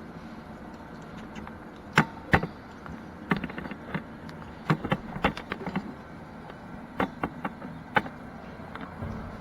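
Irregular sharp clicks and knocks, about a dozen, over a steady low hum.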